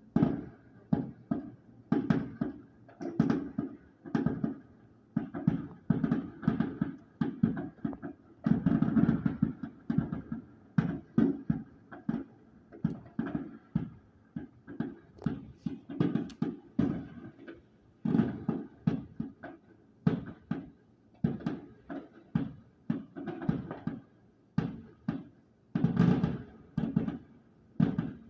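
Consumer fireworks going off in a long, uneven run of bangs, one or two a second, each a sharp report that fades quickly as the shells burst overhead.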